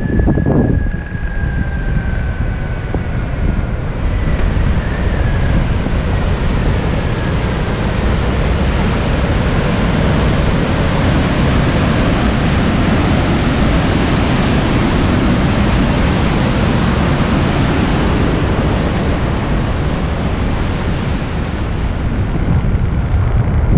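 Rushing white water of a mountain river pouring out of a rock tunnel, a loud steady rush that builds over the first few seconds, with wind noise on the microphone. In the first few seconds a faint high whine falls in pitch and fades out.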